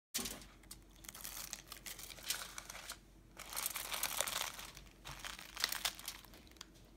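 Aluminum foil crinkling in irregular bursts under hands pressing a fried tortilla down onto ground beef.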